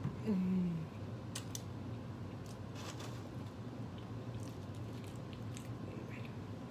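Close-miked eating of a McDonald's burger: soft chewing and wet mouth clicks, opening with a short low hum from the eater's closed mouth. A steady low hum sits under it all.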